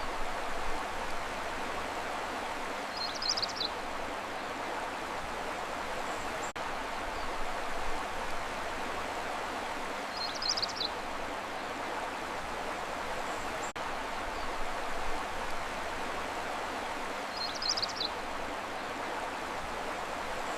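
Steady rushing of flowing water, with a brief high chirp three times, about every seven seconds. The water and the chirps repeat identically as a short loop.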